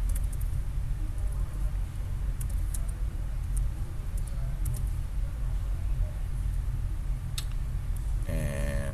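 Computer keyboard keys clicking now and then as code is typed, over a steady low rumble. A voice sounds briefly near the end.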